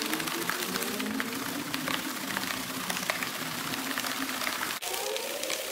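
Water and uncooked rice sloshing and rattling inside a plastic radiator coolant reservoir as it is shaken hard by hand, the rice grains pattering against the plastic walls as they scour away the grime inside.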